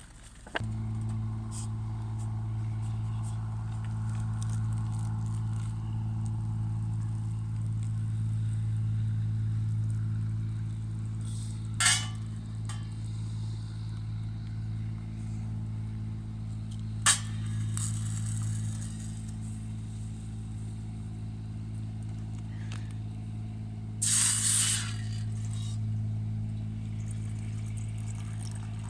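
A steady low engine hum, like a vehicle idling, that starts abruptly about half a second in, with two sharp clicks and a brief hiss later on.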